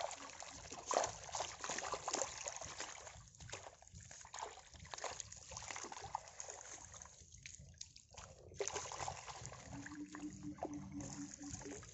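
Water trickling and splashing off the mesh of a square lift net as it is hoisted out of shallow floodwater, with irregular small splashes and drips.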